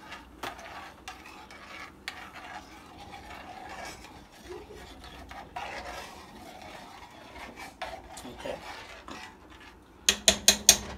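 A utensil stirring creamy Alfredo sauce in a pan, with soft scraping and scattered light clicks against the pan. Near the end comes a quick run of sharp clicks.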